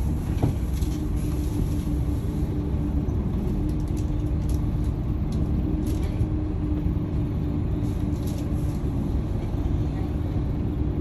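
Scania OmniLink single-deck bus heard from inside the saloon: a steady low engine rumble with a steady hum over it, the bus standing or barely moving.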